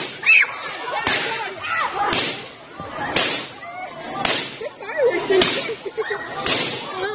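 Sparks from a giant twin-domed Van de Graaff generator striking a grounded metal target: a loud sharp crack about once a second, each with a brief hiss.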